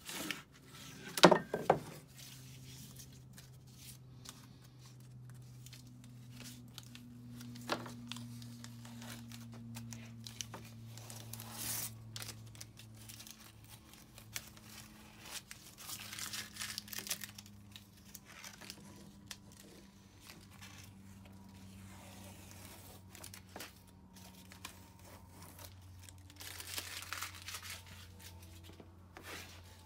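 Blue masking tape being peeled off a strip of segmented wood inlay banding in several tearing pulls. Near the start come a few sharp knocks of wooden blocks being moved on the workbench, and a faint steady hum runs underneath.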